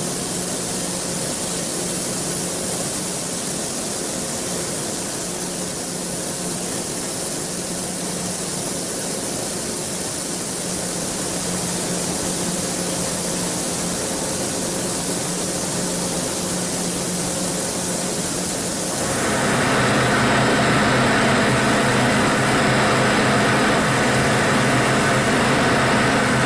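Steady hiss of a compressed-air paint spray gun applying paint in a spray booth, with a low steady hum underneath. About 19 seconds in the sound changes to a denser hiss with a stronger hum.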